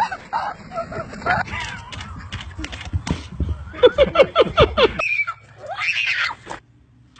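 Birds squawking and shrieking in a rapid run of calls, broken by abrupt cuts between short clips.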